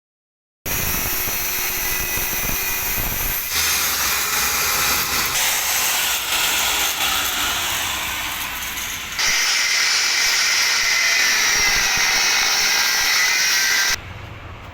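Loud power tool running on metal, a steady hissing whine that changes character abruptly about 3.5 and 9 seconds in and drops away near the end.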